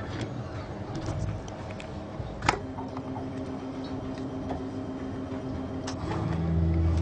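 Lord of the Ocean slot machine sounding a steady electronic tone while a line win is shown, over a background hum. Sharp clicks come and go, the loudest about a third of the way in, where the tone begins; the tone stops about a second before the end.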